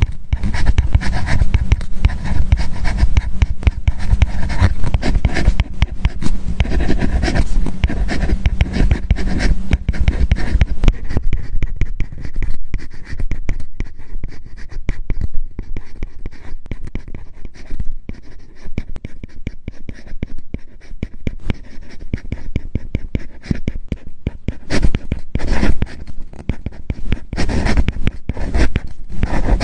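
Apple Pencil nib writing on a paper-like matte screen protector, a close, dense run of rapid scratching strokes and tip taps. The strokes are softer through the middle and grow louder again near the end.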